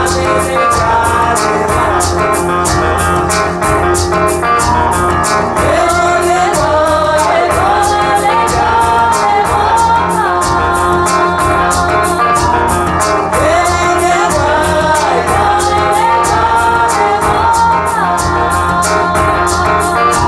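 Music played back over a high-end stereo system with planar ribbon loudspeakers: a singing voice over a steady beat and a sustained bass line.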